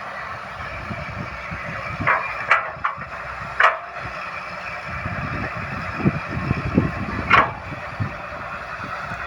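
Excavator working: its engine runs steadily while several sharp knocks ring out, about 2 and 3.5 seconds in and again near the end, with a run of low thuds just before the last one.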